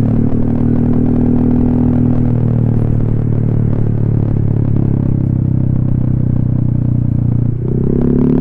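Honda ADV 150 scooter's single-cylinder engine running through an SC Project aftermarket exhaust while riding, its note easing down steadily. About seven and a half seconds in it dips briefly, then the pitch climbs as the throttle opens again.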